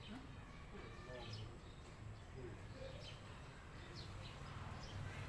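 A cat chewing crunchy puffed snack sticks, a short crunch every second or so, under faint distant voices.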